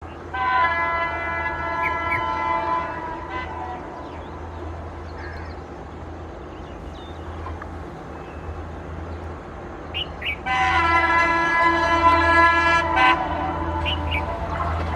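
Horn of a WDM3A ALCo diesel locomotive sounding two long blasts, each about three seconds and some seven seconds apart: a hoarse, 'sore throat' honk. Beneath the blasts is the steady low rumble of the oncoming train, growing louder near the end.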